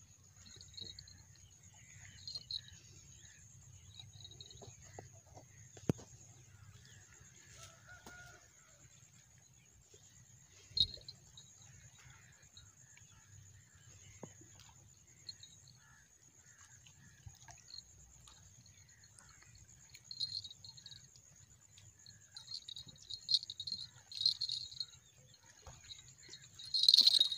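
Small bite-alarm bells clipped to a fishing line jingling in short bursts as the line is handled, coming more often and louder near the end.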